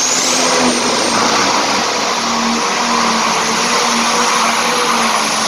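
Turbocharged diesel hot farm tractor at full power, pulling the sled: a loud, steady engine noise with a high turbo whine that rises in pitch over the first second and then holds.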